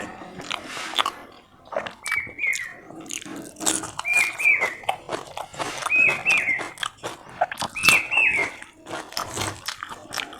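A person biting and chewing crunchy food close to the microphone, with sharp crunches throughout. Behind it, a short high two-note call repeats about every two seconds.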